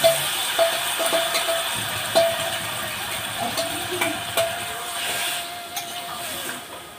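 A spoon scraping and knocking inside a steel bowl as it is emptied into a steel kadai: repeated sharp metallic clicks, with the bowl ringing in a steady tone between them, over a hiss of frying that slowly fades.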